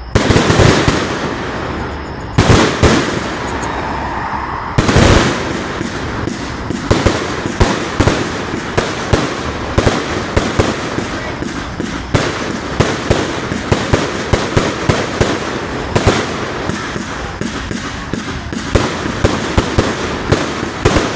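Easy Money 191-shot firework cake firing in a fast, continuous run of launches and bursting shells. The heaviest bangs come at the start, at about two and a half seconds and at about five seconds, followed by a steady rapid string of shots.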